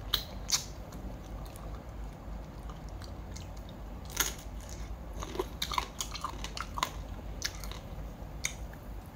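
A person biting and chewing spicy raw crab salad close to the microphone: irregular wet crunches and mouth clicks.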